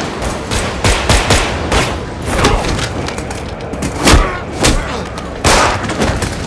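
Action-film fight sound: irregular gunshots and heavy hits in a close-quarters fight, with short shouts or grunts between them.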